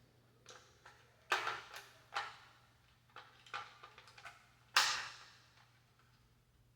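Plastic clicks and knocks of AA batteries being handled and pushed into a thermostat's battery compartment, with two louder snaps about a second in and near the middle.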